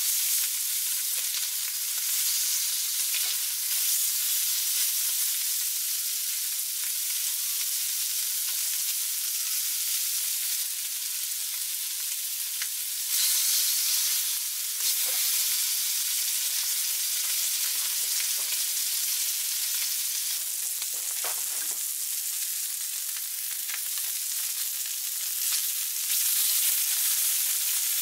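Steak and pork sizzling on hot black iron griddle plates over a fire: a steady high hiss of fat frying, with now and then the light clicks of metal tongs turning the meat.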